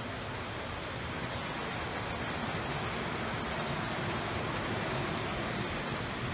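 Steady, even rushing noise with no distinct knocks, steps or tones.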